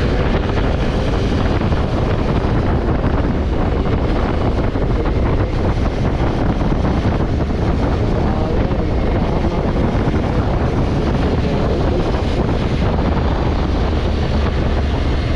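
Honda Africa Twin's parallel-twin engine running steadily under way, with wind buffeting the microphone.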